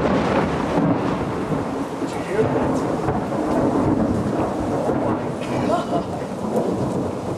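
Thunder: a sudden loud clap, then a long rumble that goes on without a break, with rain falling.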